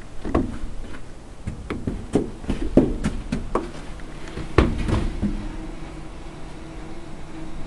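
A string of sharp knocks and clicks, about a dozen over the first five seconds, the loudest about three and about four and a half seconds in, followed by a faint steady hum.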